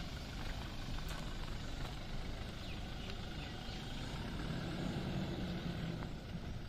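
Toyota Hilux pickup's diesel engine running as the truck drives, with a few light knocks. The engine note grows louder for about a second, about four and a half seconds in.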